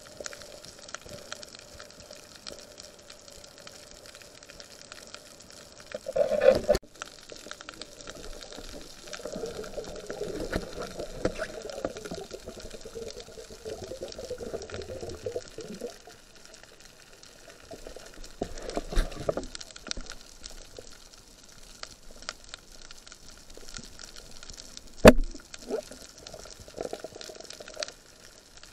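Underwater sound at a reef, recorded with the camera submerged: a steady fine crackle throughout, with bubbling and gurgling water in several bursts. One sharp knock comes about 25 seconds in.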